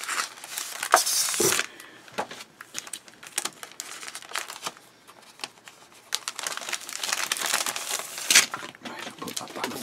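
Clear plastic bag crinkling and crackling as a paper instruction booklet is slid out of it, with louder bursts about a second in and again near the end.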